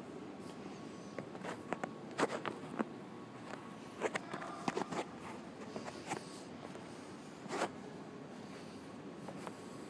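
Scattered light clicks and taps over a steady low hum of an underground metro platform, with a faint thin tone running through it. The loudest click comes near the end.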